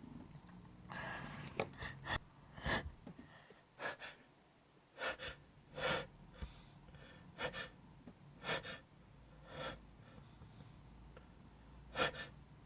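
A man's string of short, sharp sniffs and gasping in-breaths, roughly one a second, with a pause before the loudest and sharpest one near the end. These are the hitching breaths of an allergic reaction to inhaled flower allergen that has blocked his nose.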